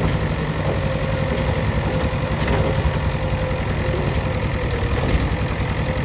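JCB 3DX backhoe loader's diesel engine running steadily with a low, even chugging and a faint steady whine above it.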